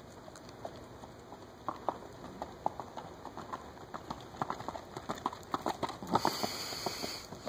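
Hoofbeats of a quarter horse mare walking on a dirt arena, a run of uneven soft knocks that grows louder and closer together as she passes close by.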